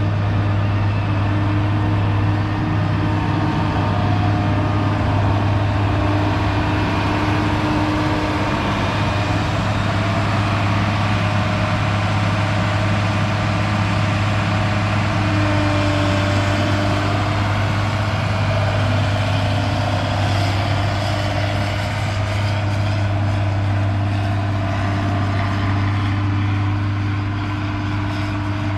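A large engine running steadily at a constant speed, with a strong, even low hum throughout.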